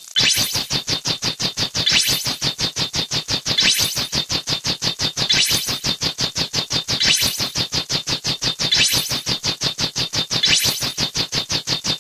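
Synthesized electronic sound effect: a fast, even pulsing of about six beats a second, with a brighter high swell returning about every 1.7 seconds.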